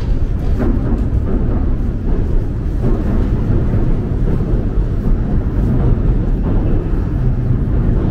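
Busy outdoor market ambience: crowd chatter under a steady low rumble.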